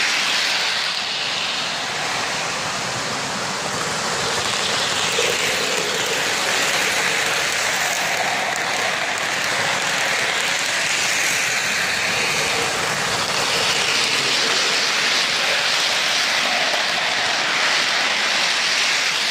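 Lionel O-gauge model freight train running on FasTrack, a steady rolling noise of wheels on the track that grows a little louder as the cars pass close.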